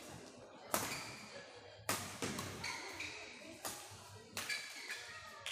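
Badminton rackets hitting a shuttlecock in a fast doubles rally: about six sharp hits, roughly one a second, each echoing in a large hall.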